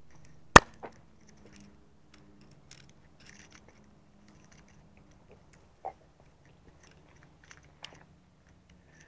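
A sharp click about half a second in, then scattered faint clicks and small rustles over a low steady hum.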